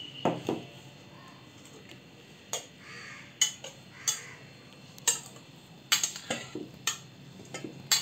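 Slotted stainless steel spatula knocking and scraping against a steel kadai as cooked okra is tipped and scraped into a smaller steel pot: a string of irregular sharp metal clinks and scrapes, coming closer together near the end.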